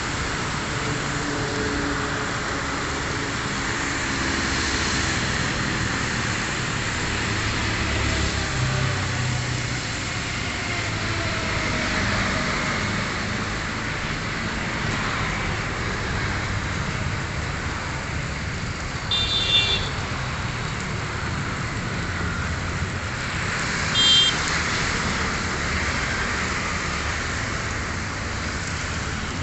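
Steady distant rushing drone of an IndiGo Airbus A320-family jet's engines at low power as it taxis along the runway. Two short, high chirps cut in about two-thirds of the way through and again a few seconds later.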